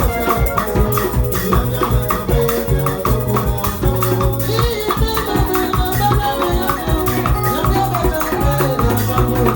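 Music with a shaker rattling steadily over drums and a regular beat, pitched instruments or voices moving above it.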